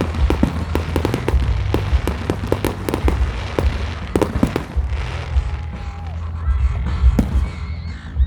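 Fireworks crackling and popping in quick, irregular bursts, dense for the first five seconds and thinning out after, over a steady low rumble.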